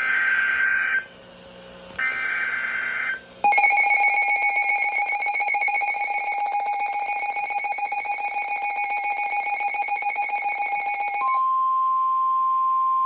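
Emergency Alert System warning tones: two short bursts of warbling digital data (the SAME header), then a long pulsing attention tone, which changes about three quarters of the way through to a steady single tone.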